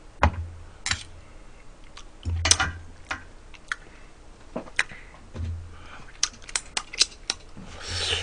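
Metal ladle, chopsticks and spoon clicking and clinking against the pot and bowls in a string of short, sharp taps, with a few dull knocks on the table.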